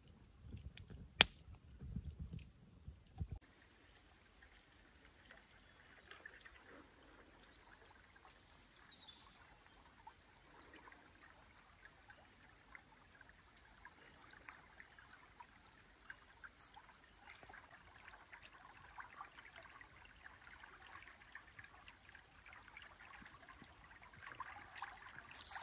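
Faint trickle of river water running past fallen logs, an even soft hiss with small ticks. A few knocks and one sharp click come in the first few seconds, and a brief high chirp around nine seconds in.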